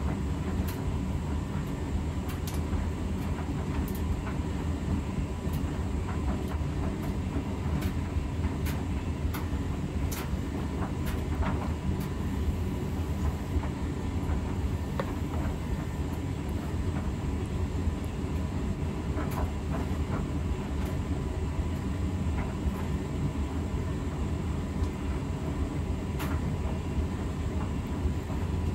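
Steady low rumble of a moving vehicle, with a faint steady tone and scattered light clicks.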